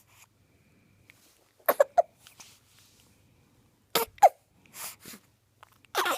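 A baby hiccuping: three sudden hiccups about two seconds apart, the first two ending in a short high squeak, with soft breaths between.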